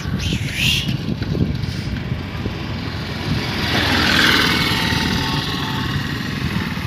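Road traffic: a steady engine rumble, with a vehicle passing close by and growing loudest about four seconds in before fading.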